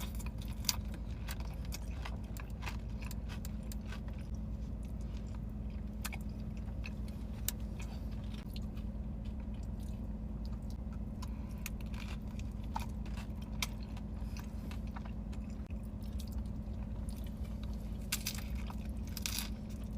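Close-miked eating sounds: chewing and biting with scattered small wet clicks and light crunches, over a steady low hum.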